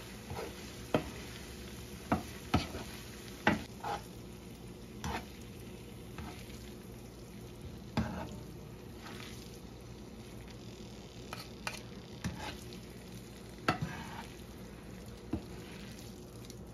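Spaghetti and tomato-pancetta sauce being tossed in a nonstick frying pan with a wooden spatula and metal tongs: irregular knocks and scrapes of the utensils on the pan over a steady sizzle.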